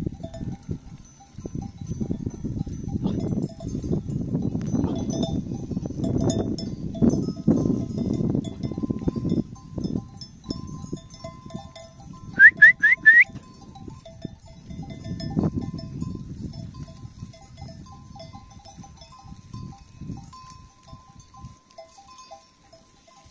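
A flock of sheep on the move with their bells clinking. About halfway through, four quick rising high chirps are the loudest sound.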